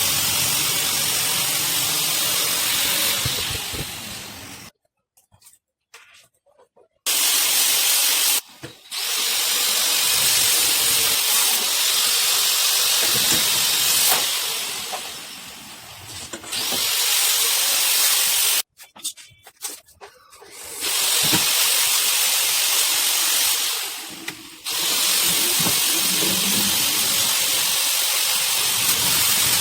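Compressed-air spray gun hissing in long bursts of several seconds, each starting and stopping sharply as the trigger is pulled and released, with short pauses between.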